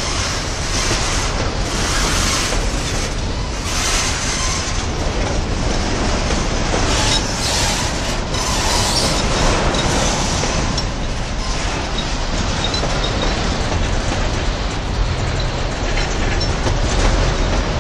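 A string of empty freight cars (boxcars and hopper cars) rolling past close by, a continuous rumble with steel wheels clacking over the rail.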